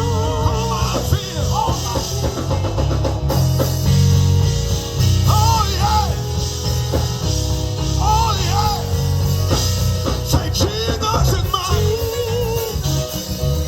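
Gospel band playing: organ melody with held chords and bending runs over electric bass and a drum kit.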